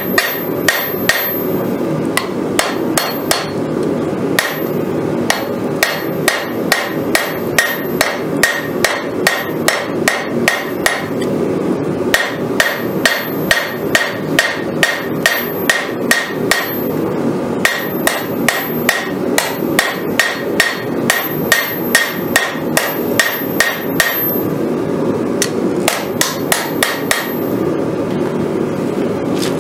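Hand hammer striking a glowing-hot Damascus knife blade on a steel anvil, forging the Bowie blade's profile: steady blows about three a second, in runs of several seconds broken by short pauses.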